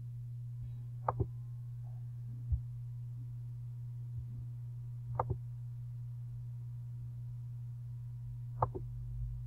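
Computer mouse clicks, three of them, each a quick press-and-release pair, about a second in, about five seconds in and near the end, over a steady low electrical hum.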